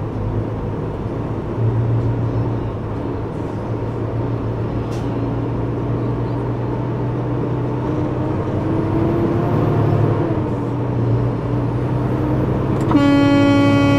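Steady drone of a semi truck's diesel engine and road noise heard inside the cab. About a second before the end, a truck air horn starts blaring, held steady and louder than anything else.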